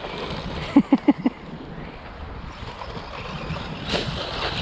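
RC car running off-road, a steady noisy rush of motor and tyres with a brief sharper rush near the end. About a second in, four short pitched sounds in quick succession stand out above it.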